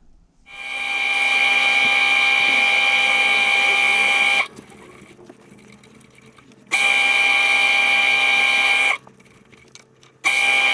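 Small lathe motor running at speed with a steady high whine while an acrylic pencil blank is sanded on it. It spins up about half a second in, stops abruptly about four seconds later, then runs in two more stretches, cutting out again about nine seconds in and restarting near the end.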